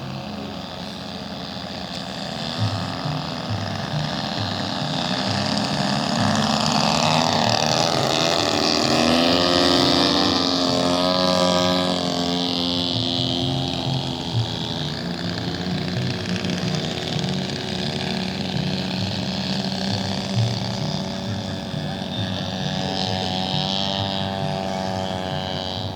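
Engine of a radio-controlled model airplane flying past: the engine note builds to its loudest about ten seconds in, then falls in pitch as the plane goes by, and fades back to a steady drone.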